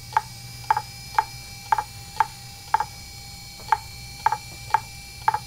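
2.5-inch Fujitsu MHK2048AT laptop hard drive clicking over and over, about two clicks a second with some doubled, over the steady hum of its spinning platters. This is the repeated head clicking typical of a failing drive.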